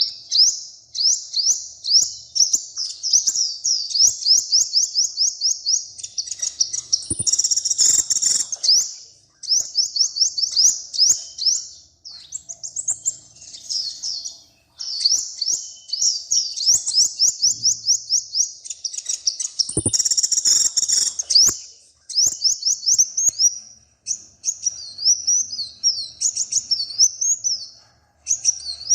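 A small songbird singing in long fast runs of high, sweeping chirps, several a second, broken by short pauses. Twice there is a harsher, rasping burst mixed into the song.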